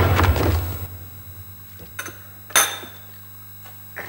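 A steady low electrical hum with a few short knocks, the loudest about two and a half seconds in; a louder sound dies away during the first second.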